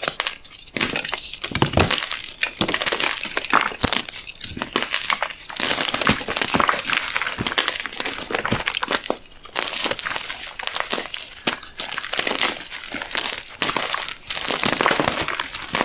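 Gym chalk being crushed and crumbled: a dense run of dry crunching and crackling that starts about a second in and goes on with short pauses.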